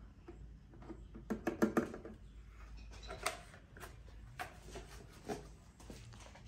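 Light clicks and knocks of objects being handled, a quick run of them about a second and a half in, then a few single ones spread out.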